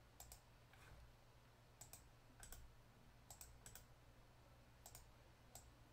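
Faint computer mouse clicks, about nine scattered over a few seconds, some in quick pairs, against near silence.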